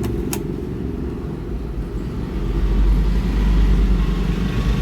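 Steady low background rumble, swelling from about halfway in, with one sharp click near the start.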